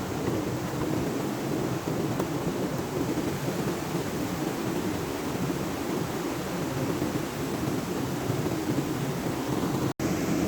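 Steady roar of a waterfall and stream, rushing water with a deep, even rumble, cut off for an instant near the end.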